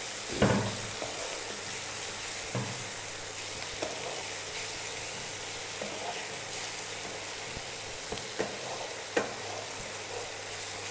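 Onions, green chillies, fenugreek leaves and ginger-garlic paste sizzling in hot oil in a kadhai, with a steady hiss. A wooden spatula stirs them, scraping and knocking against the pan every second or two.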